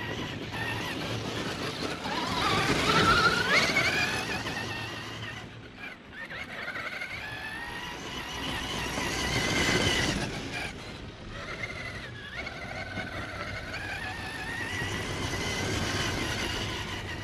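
Axial SCX6 1/6-scale electric 4WD RC crawler driving: its motor and gears whine, rising and falling in pitch with the throttle and dipping briefly a few times as it lets off.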